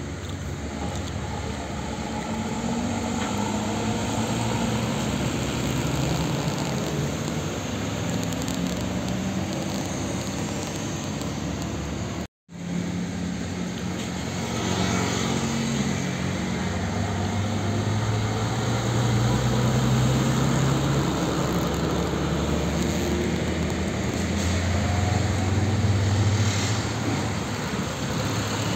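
Heavy diesel trucks running past at low speed, with a steady low engine note over road noise. The sound drops out briefly about twelve seconds in.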